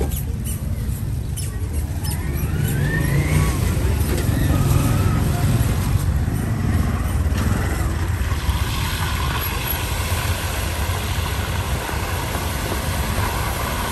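Street traffic: a steady low engine rumble from tuk-tuks, motorbikes and cars, with a brief rising whine a few seconds in.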